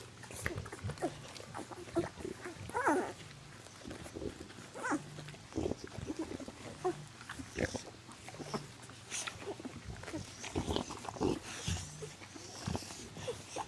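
Two-week-old bullmastiff puppies nursing, with short squeaks and grunts scattered throughout, mixed with wet licking and suckling sounds from the mother and litter.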